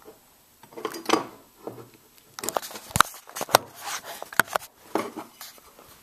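Sharp clicks and knocks from an old fire alarm pull station being handled, a quick run of them from about two and a half to four and a half seconds in, the loudest a knock about three seconds in.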